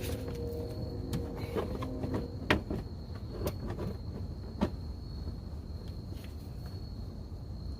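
Scattered light clicks and knocks of plastic fender liner and splash guard parts and their clips being handled and fitted. The two loudest knocks come about two and a half and four and a half seconds in. A low hum runs through the first couple of seconds, and a faint steady high tone sits under it all.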